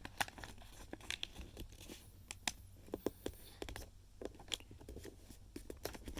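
Origami paper being folded and creased by hand, with a run of irregular crinkles and sharp crackles as the fold is pressed down.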